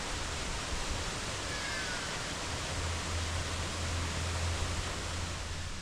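Small river running steadily, an even rushing hiss of water with a low hum underneath that is strongest midway.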